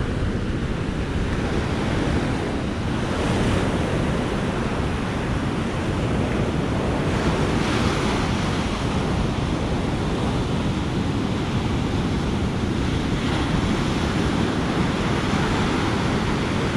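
Ocean surf breaking and washing up on a beach, with wind rumbling on the microphone: a steady rush that swells a little a few times.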